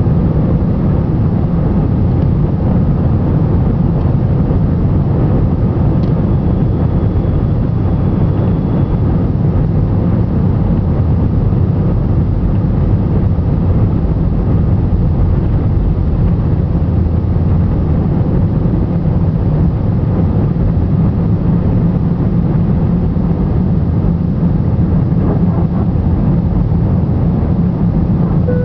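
Steady jet engine and airflow noise inside an airliner cabin: a deep, even rumble that holds at the same level throughout.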